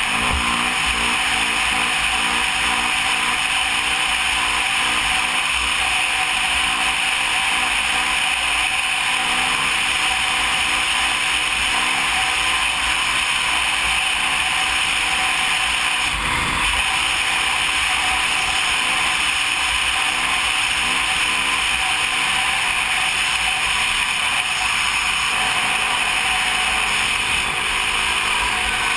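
Kawasaki KX450F dirt bike's single-cylinder four-stroke engine, heard from the rider's own camera at speed. The engine note rises and falls with the throttle under a steady rush of wind noise.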